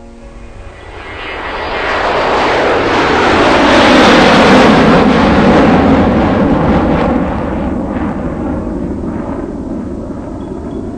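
Aircraft passing low overhead: a loud rushing engine noise that swells to a peak about four seconds in and then slowly fades.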